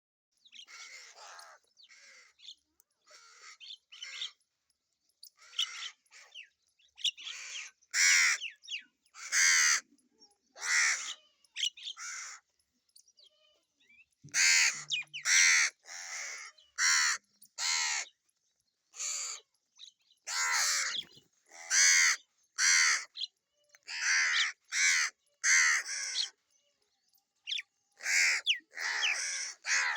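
Crows cawing over and over, one harsh call after another with short silent gaps between, some in quick pairs or runs. The calls are softer at first and much louder from about eight seconds in.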